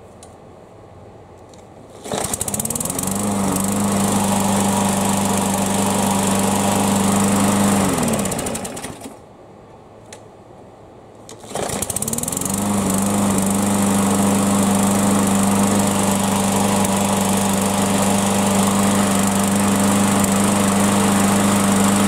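Yard Machines push mower's small engine, warm, started without priming: it catches about two seconds in, runs steadily, winds down and stops near the middle, then is started again and runs steadily to the end. The warm no-prime start succeeds.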